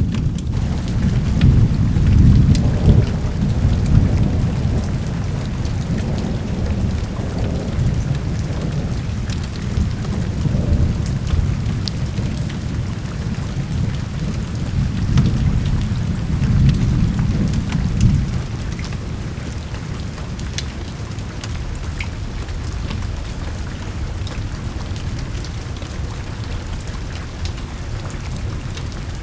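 Steady rain with a long rolling rumble of thunder that swells and ebbs and dies away about eighteen seconds in, scattered sharp ticks sounding through the rain.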